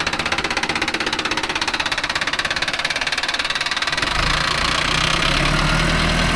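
Diesel tractor engine running with a fast, even knock of its firing strokes. About four seconds in, a deeper, steadier rumble comes in and holds.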